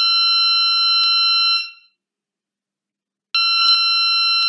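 Volvo Penta 2.5-inch engine display's audible alarm: a loud, steady electronic beep of about two seconds, which stops and then sounds again about a second and a half later. It is the warning for an active fault detected by the EVC system.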